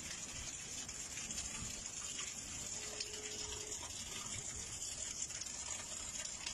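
Hail and rain falling steadily, a dense hiss of countless small hailstone and raindrop impacts on the ground and parked cars.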